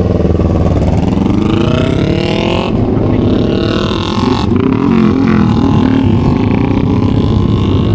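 Kawasaki ZX-25R's high-revving inline-four with an Austin Racing aftermarket exhaust accelerating hard, its pitch climbing through the gears with quick upshifts about three and four and a half seconds in.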